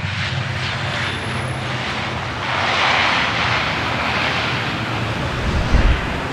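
Airliner fly-by engine noise, a steady rush that swells about halfway through as the plane passes. A short low thud comes near the end.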